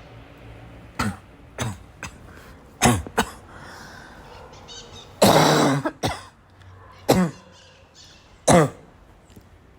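A person's barking cough: about eight separate coughs, each dropping in pitch, with a longer, louder cough about five seconds in.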